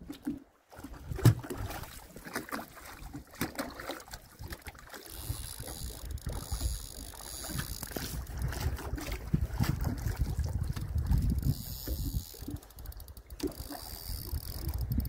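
Wind rumbling on the microphone and water slapping against a small boat, with a sharp knock about a second in.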